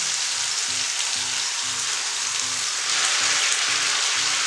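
Onion paste frying in hot oil in an iron kadhai, a steady sizzle. About three seconds in it grows louder and brighter as ground tomato purée is poured into the oil.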